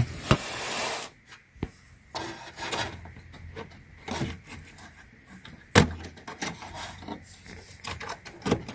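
Scattered clicks and knocks with a scraping rub, from hands working cables and parts inside a desktop computer's case. The rub fills the first second, and the sharpest knock comes about six seconds in.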